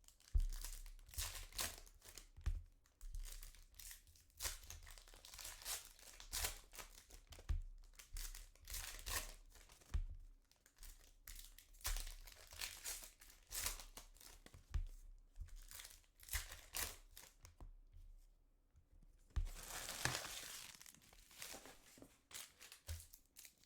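Foil trading-card pack wrappers being torn open and crinkled, in a run of short rustles and snaps, with a longer tear near the end.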